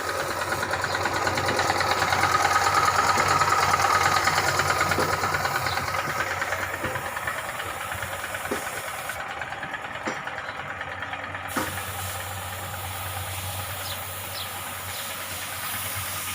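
An engine running steadily with a hiss over it, getting louder over the first few seconds and then slowly easing off.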